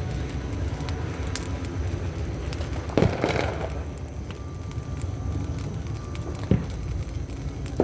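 Firecrackers going off over a steady low background rumble: a sharp bang about three seconds in, the loudest, followed by crackling, and two more single bangs later on.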